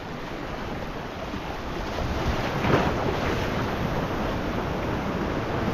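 Sea waves washing against a rocky shore, with wind buffeting the microphone; the wash swells about two seconds in.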